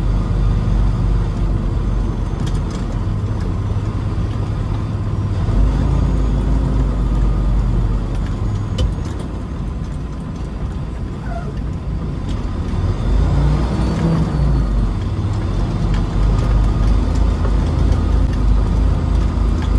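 Semi truck's diesel engine running as the truck drives slowly, heard from inside the cab with a deep steady rumble. The engine picks up and gets louder about six seconds in and again near thirteen seconds.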